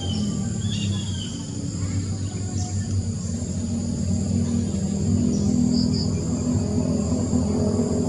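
Steady chorus of insects with a high, continuous buzz over a low, even hum. Short bird chirps come in the first second, and a brief pair of chirps about six seconds in.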